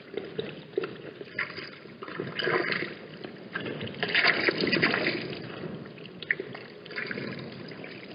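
Water sloshing and splashing in irregular bursts at a watering hole.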